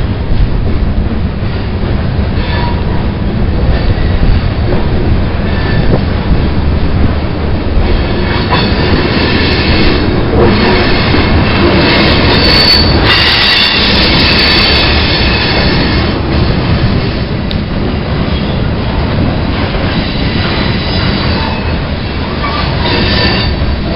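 Freight cars of a CN train rolling past: a steady rumble of steel wheels on the rails, with a high-pitched wheel squeal that swells for several seconds in the middle and returns near the end.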